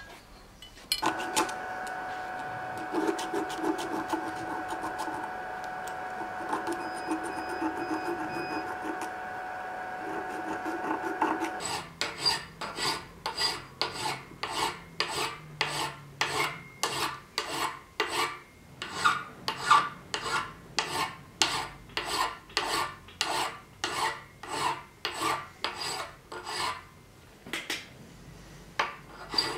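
Hand file strokes on a copper habaki blank held in a vise: a regular back-and-forth rasping, about two strokes a second, through the second half. Before that, for about ten seconds, a steady hum with light scraping under it.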